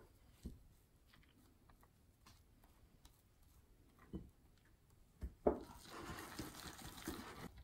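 A wire whisk and spatula working thick batter in a glass mixing bowl: a few light knocks and taps, then from about five and a half seconds in a stretch of stirring and scraping.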